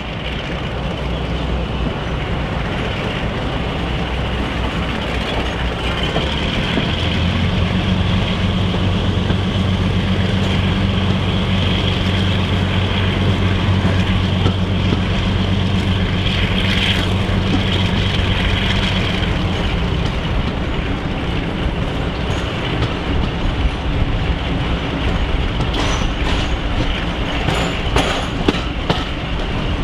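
Class 42 Warship diesel-hydraulic D821's twin Maybach diesel engines working under power as the locomotive pulls its train along, with a steady engine note that grows louder about seven seconds in and eases off around twenty seconds. Wheels click over rail joints near the end.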